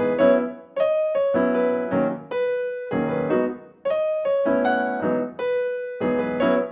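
Background music on a piano-like keyboard: a run of notes and chords, each struck and then fading.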